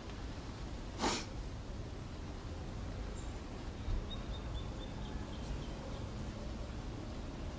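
Outdoor ambience with a steady low rumble; a short, sharp breath out about a second in, and a faint run of high bird chirps about four seconds in.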